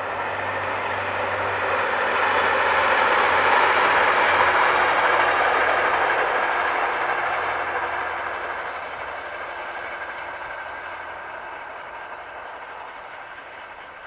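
Passenger train on the JR San'in Main Line passing by. Its running noise swells to a peak about four seconds in, then slowly fades as it draws away.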